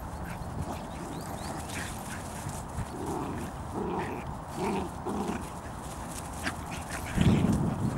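Bedlington Terrier mother and puppies play-fighting, with short low dog vocal sounds: a run of four or five about halfway through and a louder one near the end.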